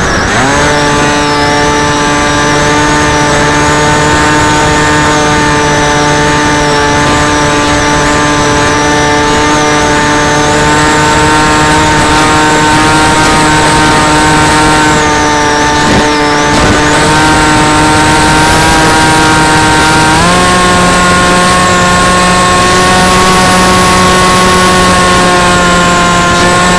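Onboard sound of a Tek Sumo model flying wing's motor driving an oversized propeller in flight, a loud steady whine at constant pitch. The pitch dips just after the start and steps up to a higher, steady note about 20 seconds in as the throttle is opened further.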